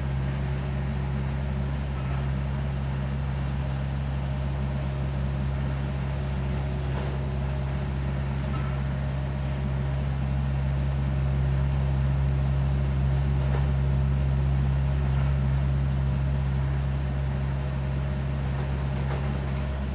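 Mini excavator's diesel engine running steadily under load as it digs out tree roots. The engine grows a little louder around the middle.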